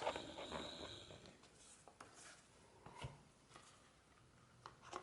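Faint handling of small repair tools on a phone's parts: light rubbing and scraping, with a soft click about three seconds in and two more near the end.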